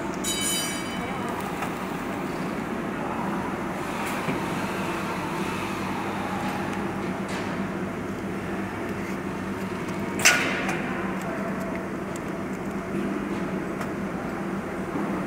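Steady machinery hum in a workshop with a constant low drone, under light clicks and rustling as fabric bellows pleats and thin metal strips are fitted by hand. There is a single sharp, bright burst about ten seconds in.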